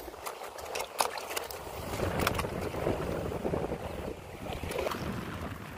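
Wind rumbling on the microphone, with water washing against rocks and a few sharp clicks, about a second in and again near the middle.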